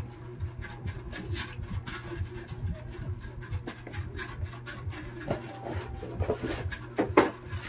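Cardboard packaging being handled: a box lid and sides rubbing and scraping as the box is tilted and its contents pulled out, with a louder sharp rustle near the end. A steady low hum with a faint regular pulse runs underneath.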